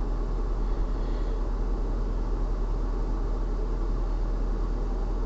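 Steady cabin noise of a 2022 Hyundai Tucson's climate-control fan blowing, over a low rumble. The climate control shows Lo and is not responding to its touch controls.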